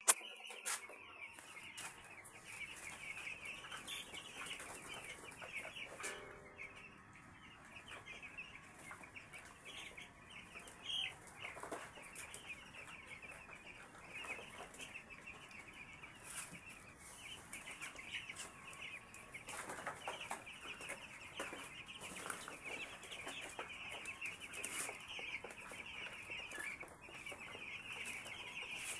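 A brood of 11-day-old chicks peeping all together in a continuous high chorus, with a few brief knocks here and there.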